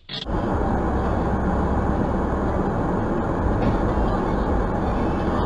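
Steady road and wind noise of a moving car, picked up by a dashcam microphone. It starts abruptly about a quarter second in.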